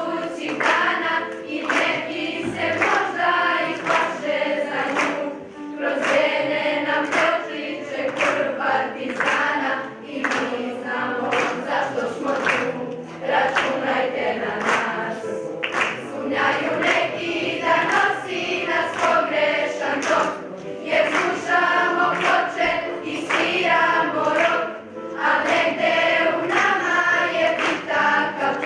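A school choir of children and teenagers singing together, in phrases with brief dips between them.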